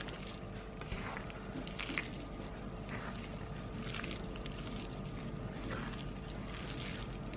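A bare hand mixing and squeezing raw beef pieces with grated coconut, starch and beaten egg on a plastic plate: soft, wet squishing and rustling in irregular strokes, over a steady faint hum.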